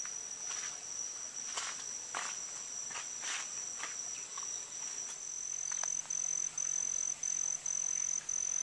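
An insect trilling, a steady high-pitched tone that, about six seconds in, breaks into evenly spaced pulses at about two to three a second. A few soft short rustles come in the first half.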